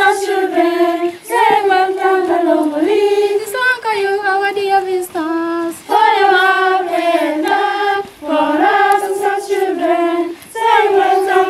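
A group of schoolgirls singing together without accompaniment, all on one melody line, in short phrases with brief breaks for breath.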